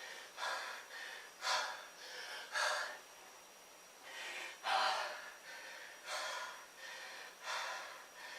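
A man breathing hard through his mouth from push-up exertion, a loud breath about once a second with short pauses between.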